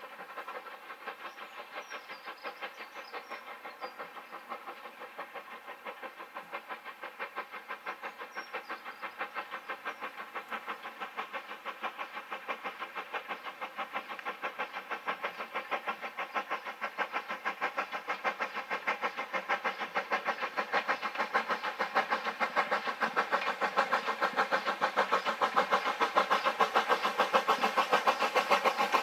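Steam locomotive working a goods train toward the listener, its exhaust beating in a steady, even rhythm that grows steadily louder as it approaches.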